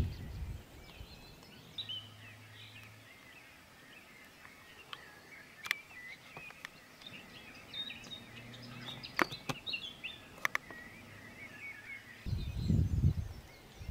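Scattered birdsong from several small songbirds, with short chirps and trills throughout. A few sharp clicks sound in the middle, and a brief low rumble comes near the end.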